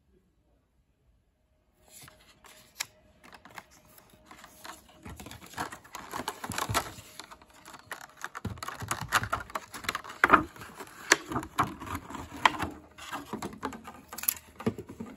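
Clear plastic clamshell packaging crackling and clicking as a wireless mouse is worked out of its tray by hand, an irregular run of sharp clicks and crinkles that begins about two seconds in.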